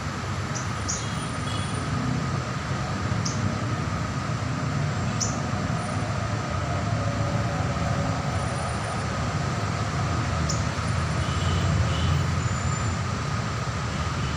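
A few brief, high chirps from a sogon bird, scattered several seconds apart, over a loud, steady rumble and hiss.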